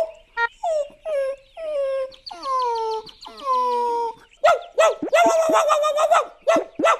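Cartoon dog whining in a series of long falling whimpers, then breaking into a quick run of short, high yapping barks about four and a half seconds in.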